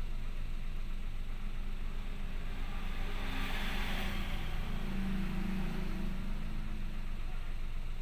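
First-generation Toyota Wigo's 1.0-litre three-cylinder engine idling steadily, with a brief swell of hiss about three to four seconds in.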